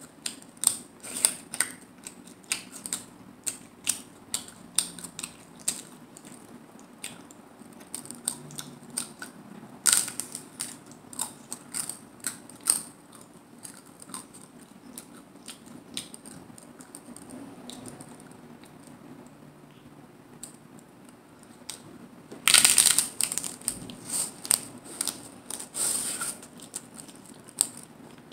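Hard corn taco shells crunching as they are bitten, chewed and broken: a series of sharp crackles, with a louder, longer crunch about three-quarters of the way in.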